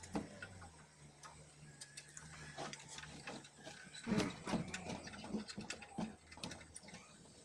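Faint, irregular clicking and knocking of harness gear being handled, such as metal carabiners and buckles, with a cluster of louder knocks from about four seconds in. A low steady hum runs under the first three and a half seconds.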